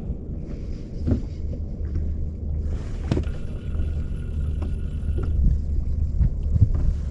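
Boat motor running with a steady low hum and rumble, with a few light clicks and faint steady higher tones in the middle.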